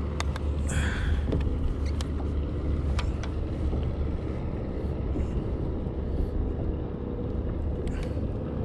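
A steady low motor hum with a few sharp clicks.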